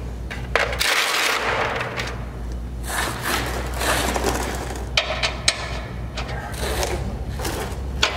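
Scraping and rustling from a person working under a truck on a mechanic's creeper, then several sharp clicks of hand tools on the bumper mounting bolts, over a steady low hum.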